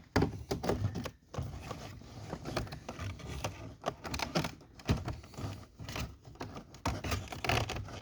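Irregular clicks and scraping of plastic parts being handled as a truck's door panel and its wiring plug are fitted.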